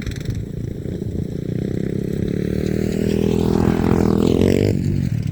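Small off-road vehicle engine accelerating, its pitch rising for about three seconds and growing louder, then the throttle closed abruptly near the end.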